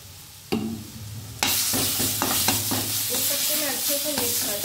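A little water poured into a hot pan of masala paste and spices frying in oil: a sudden loud sizzle starts about one and a half seconds in and keeps going while a spoon stirs. A single knock of the spoon on the pan comes just before.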